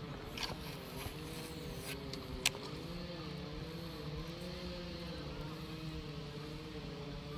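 A faint, steady mechanical hum whose pitch wavers up and down about once a second. A few light clicks sound over it, the sharpest about two and a half seconds in.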